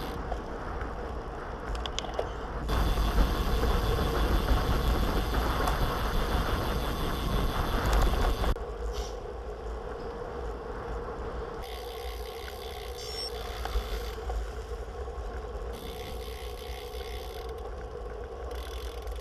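Wind rushing over a bicycle-mounted camera's microphone with deep buffeting, and road-bike tyres rolling over a paved surface. It is louder for the first few seconds, and its level jumps abruptly a few times.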